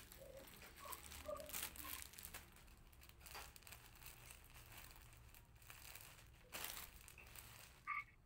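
Faint rustling and crinkling, as of something being handled, in a quiet room, with a few scattered light clicks.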